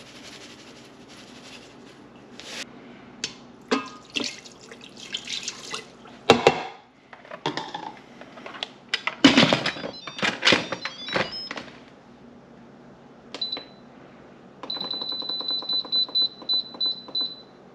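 Coarse kosher salt shaken from its box into an Instant Pot's steel inner pot, then the metal lid clattering as it is set on and turned shut. Near the end the pressure cooker's control panel beeps, once and then in a quick run, as the 15-minute cooking time is set.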